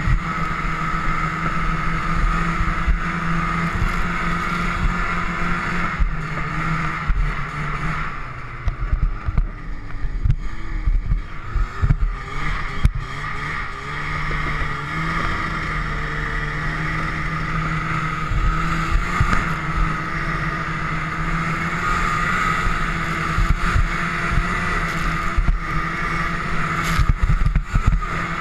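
XLV 540 snowmobile engine running steadily across open snow, with frequent knocks and thumps from bumps in the snow. Around 8 to 14 seconds in the engine eases off and its pitch wavers, then it settles back to a steady run.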